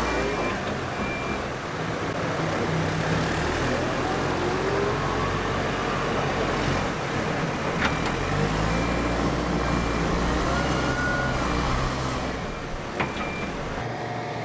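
Diesel engine of a telehandler working, its pitch rising and falling as it revs, with a reversing alarm beeping in short runs. Two sharp clicks are heard, one about halfway through and one near the end.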